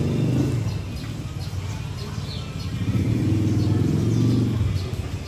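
A motor vehicle engine running nearby, loud at first, easing off about half a second in, then coming back strongly around three seconds in. Faint high chirps are heard over it.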